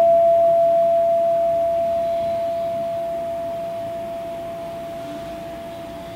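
A struck sculptural vessel ringing out in one clear, steady tone that fades slowly and evenly as it decays.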